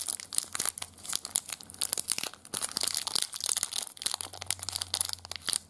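Foil wrapper of a 1996 Fleer Ultra X-Men Wolverine trading-card pack being torn open and crinkled by hand, a dense run of quick, sharp crackles.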